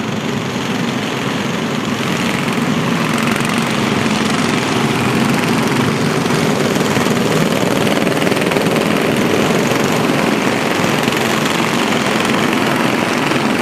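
Mini Cup race cars running at speed around an oval track, their engines making a steady, loud drone.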